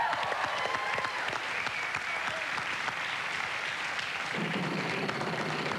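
Studio audience applauding steadily while a called letter is revealed on the game-show puzzle board.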